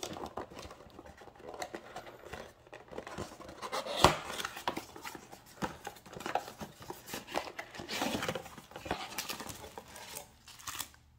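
Small cardboard booster box being opened by hand: flaps and tabs rubbing, scraping and tearing, with the crinkle of the foil packs and the plastic-wrapped die inside. One sharper knock about four seconds in.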